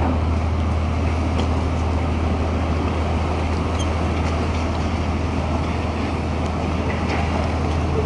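Steady low engine drone of a cargo ship moving slowly in toward the wharf, over an even wash of wind and water noise.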